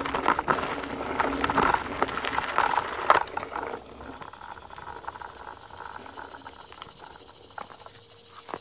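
Nanrobot LS7+ electric scooter rolling with rattling and road noise, getting quieter after about four seconds as it slows to a stop.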